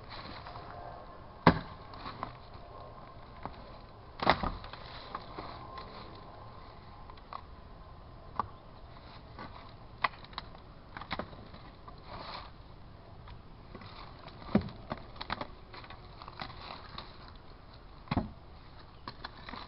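Pick axe striking into the roots and soil at the base of a shrub to dig out the root ball. There are four heavy strikes spaced irregularly, with lighter knocks and clicks between them.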